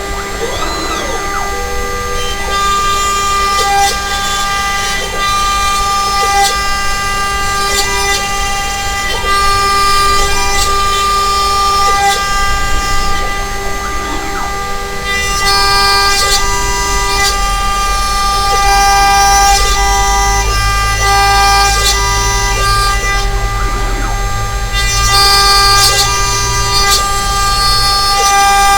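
DIY CNC router running a single-flute end mill through plywood: a steady high spindle whine, with shorter tones switching on and off as the machine moves. A low rumble swells about two-thirds of the way through.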